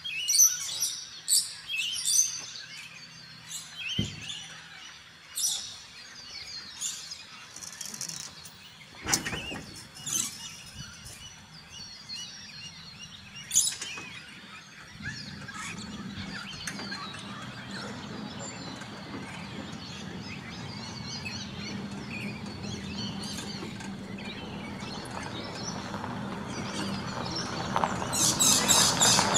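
Birds chirping, with a few sharp knocks and clunks as a camper trailer is unlatched and opened. From about halfway a steady noise with a low hum sets in and grows louder near the end.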